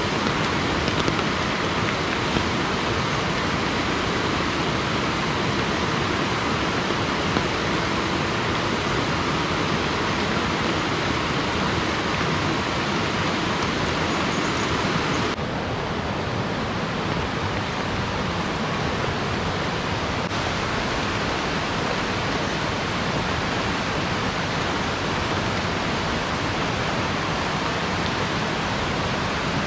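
Steady rushing water: an even hiss with no separate drops, knocks or voices. Its tone changes abruptly about halfway through.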